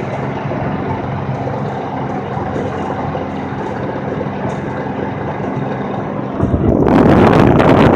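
A vehicle's engine runs steadily at low speed. About six and a half seconds in, loud wind noise on the microphone rises suddenly and swamps it.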